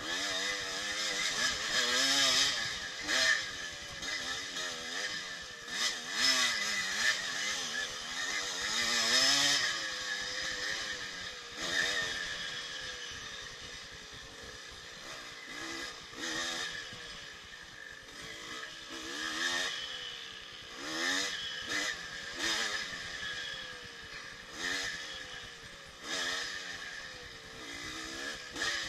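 1984 Yamaha IT200's two-stroke single-cylinder engine being ridden hard on a dirt trail, revving up and down with each throttle change. Frequent knocks and clatter come from the bike over rough ground.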